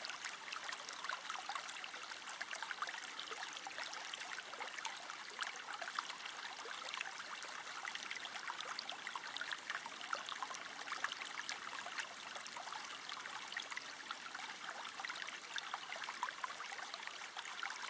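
Food sizzling in hot oil in a pan: a steady crackling hiss.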